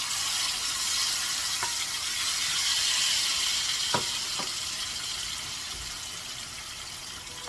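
Sliced kimchi sizzling in hot cooking oil in a frying pan, just dropped in. The sizzle comes on suddenly, swells for about three seconds, then slowly dies down, with a few light clicks.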